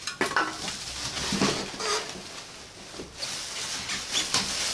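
Plastic packaging rustling and crinkling as parts are pulled from a cardboard box, with irregular rustles and small knocks.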